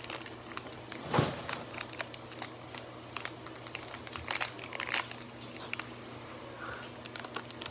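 Hands working slime, making scattered crinkly clicks and crackles, with one louder thump about a second in.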